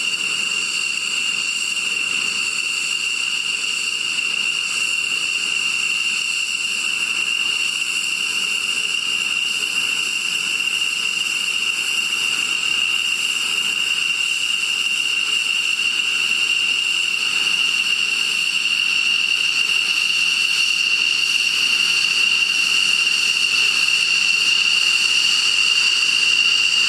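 Jet engine whining steadily at low power, a high-pitched tone over a hiss, growing slightly louder near the end.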